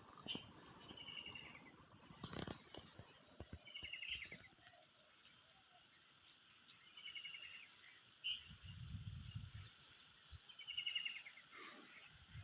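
Faint natural outdoor ambience: a steady high-pitched insect buzz runs throughout, while a bird repeats a short trilled phrase every few seconds. A brief low rumble comes in about eight seconds in.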